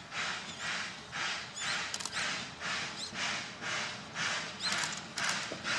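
Steam locomotive working along the line, its exhaust chuffing in a steady rhythm of about two beats a second.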